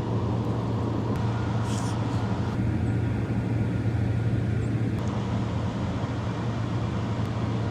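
Steady low-pitched hum over a background of even noise, with a few faint clicks and a short hiss about two seconds in.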